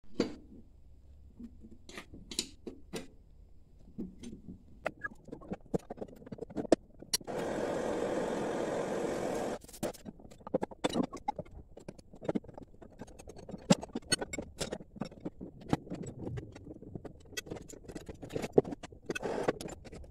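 Clinks, taps and knocks of wrenches and metal parts as a mower deck's gearbox is unbolted, with a steady rushing noise for about two seconds in the middle, the loudest sound here.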